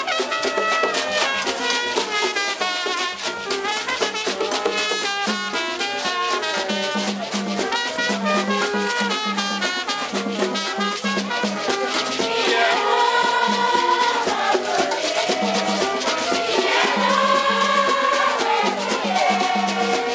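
Haitian rara band music: shakers and drums keep a fast, dense rhythm, and a louder melodic part comes in about twelve seconds in.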